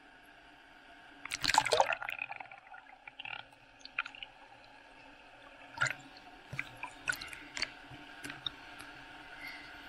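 Sea water splashing and sloshing against a camera in a waterproof case held at the surface, with one loud splash about a second and a half in, then scattered sharp pops and clicks as the camera goes under and comes back up.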